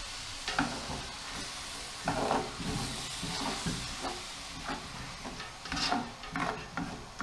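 A spoon scraping and knocking around the bottom of a large steel stockpot, over a steady sizzling hiss as a splash of water deglazes the browned, stuck-on onions and meat.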